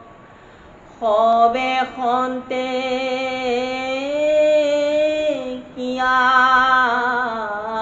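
A man chanting verses of the Assamese Bhagavat in a melodic recitation style, drawing out long, slowly gliding notes. The voice comes in about a second in, breaks off briefly past the middle and picks up again.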